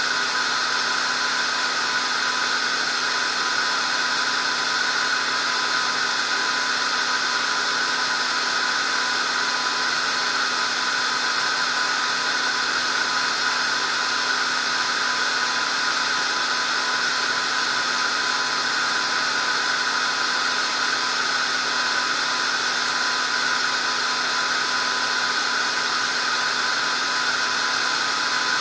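A steady, unchanging electrical whine made of several fixed high tones over a faint hiss.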